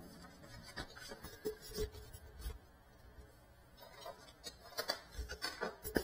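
Faint, scattered clicks and knocks of handling, close to the microphone, as the downed FPV drone and its onboard camera are picked up and moved. The motors are not running. The knocks become more frequent and louder near the end.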